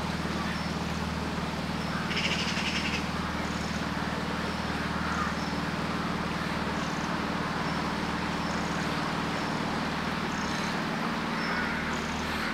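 Small outboard motor running steadily, pushing a fibreglass cruiser along a canal, while birds call now and then over it, with a few curving calls near the end.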